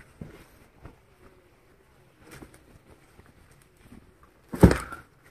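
Soft, smooth suit fabric rustling as a hand grips and bunches it close to the microphone, quiet at first, with one loud, short rustle near the end.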